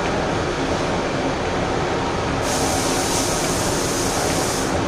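Steady rumble and rail noise of a train running at speed, heard from the driver's cab while running side by side with a ČD Cargo freight train of covered hopper wagons. A high hiss joins about two and a half seconds in and stops shortly before the end.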